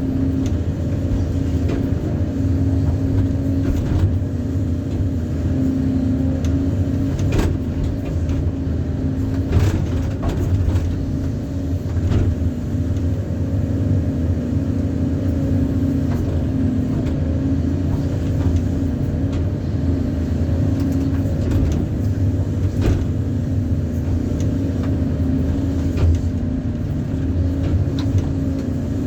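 Excavator's diesel engine running steadily, with a few short knocks.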